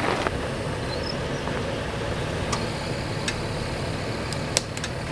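Toyota 4Runner's engine running at low revs as it crawls slowly along a dirt trail, a steady low rumble with a few sharp clicks about halfway through and near the end.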